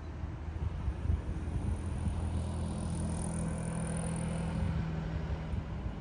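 Road traffic: a motor vehicle engine's steady low hum over a hiss of noise.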